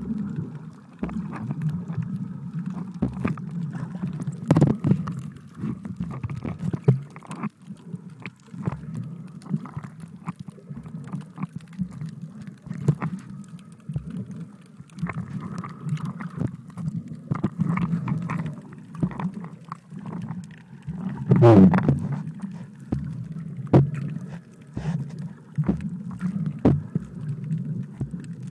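Underwater sound heard through a camera held in the sea: a steady low rumble of moving water with scattered clicks and knocks. One louder burst comes about three-quarters of the way through.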